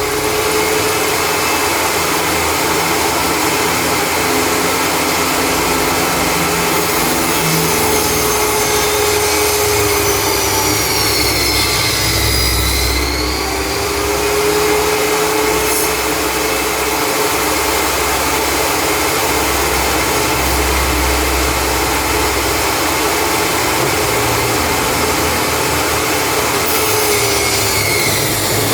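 Homemade table saw running continuously while wood branches are cut, a steady whine whose pitch sags and recovers about halfway through and again near the end as the blade takes the load of a cut.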